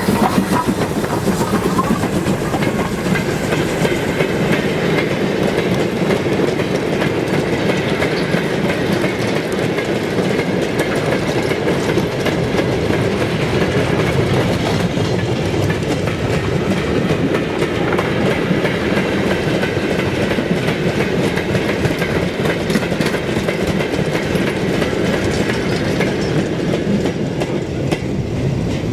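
Railway train rolling past, its wheels clattering steadily over the rail joints.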